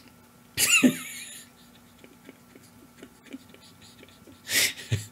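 A man's stifled laughter: a breathy, squeaky vocal sound sliding down in pitch about half a second in, then quiet, and another breathy burst of laughing near the end.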